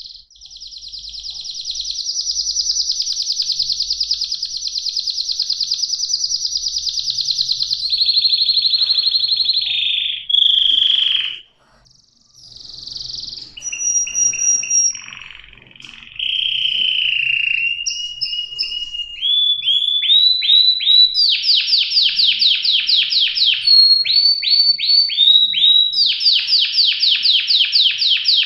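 Domestic canary singing. It opens with a long, rapid high trill, moves into lower rolling phrases, and after a brief pause near the middle goes on to fast runs of repeated down-sweeping notes.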